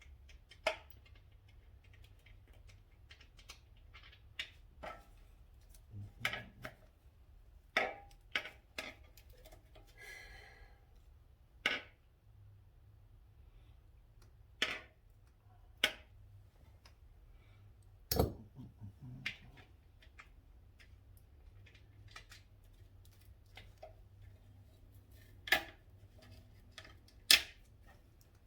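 Scattered clicks, clinks and light knocks of hand tools and metal parts as a motorcycle is taken apart, with a brief rasping sound about ten seconds in.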